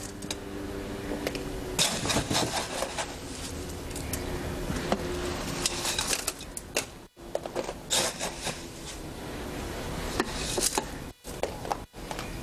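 A metal hand scoop scraping up fresh concrete and pouring it into a steel slump cone: gritty rattling and scraping of wet aggregate in several short bursts.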